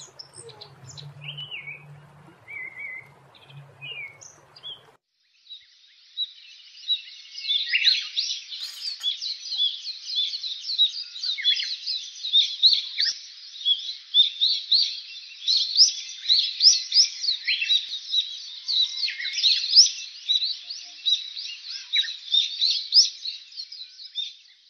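Small birds chirping and twittering in a dense, continuous chorus that starts abruptly about five seconds in. Before that there is a faint low hum and hiss with a few scattered chirps.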